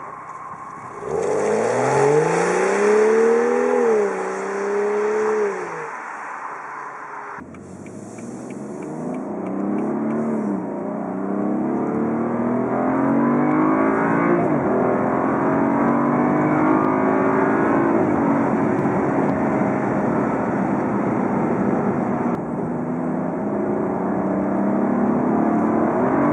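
Stock BMW 335i (F30) 3.0-litre turbocharged straight-six exhaust note. About a second in, the engine revs up, holds and drops back. It cuts off suddenly, then the engine pitch climbs and falls several times under throttle.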